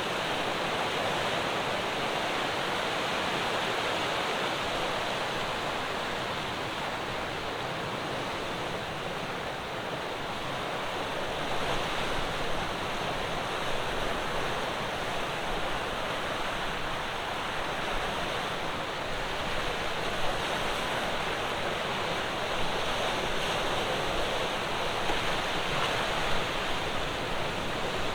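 Ocean surf breaking on a rocky shore, a continuous wash of waves that eases a little about a third of the way in and then builds again with small sharper splashes.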